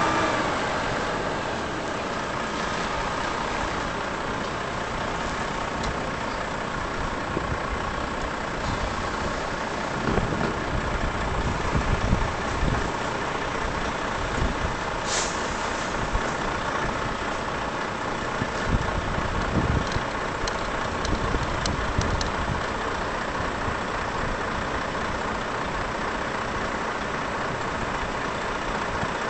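Volvo FH truck's diesel engine running as the rig with its refrigerated semi-trailer manoeuvres, with low swells in the engine sound now and then. A short air-brake hiss comes about halfway through.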